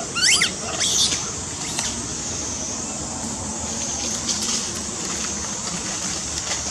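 Two short, shrill squealing calls from a young macaque, about a third of a second and a second in, over a steady high-pitched hiss.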